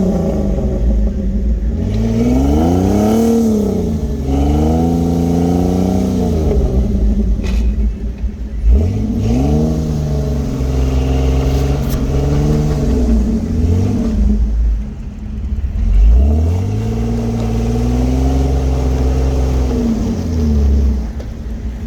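Off-road vehicle's engine revved up and let back down about four times, sometimes held at high revs for a few seconds: a vehicle working under load on the trail, where it gets stuck.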